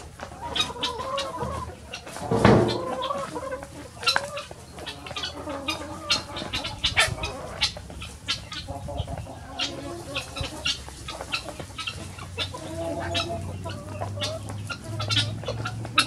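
A flock of free-range hens clucking as they feed, with many short sharp clicks scattered through and one louder burst about two and a half seconds in.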